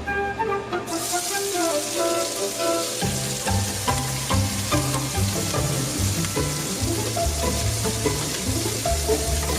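Onions sizzling in hot oil in a frying pan; the sizzle starts suddenly about a second in and keeps on. Background music plays alongside.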